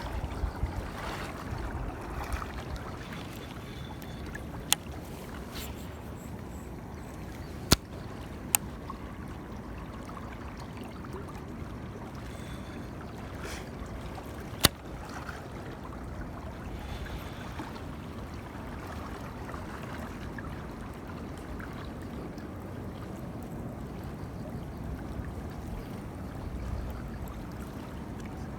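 Steady water noise with a low rumble, broken by four sharp clicks, the loudest about a quarter of the way in.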